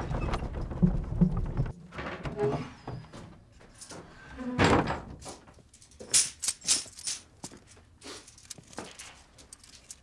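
A horse-drawn wooden cart rumbling off with a few knocks at the start. Then a run of separate knocks and sharp clicks, several close together about six seconds in, from objects being handled.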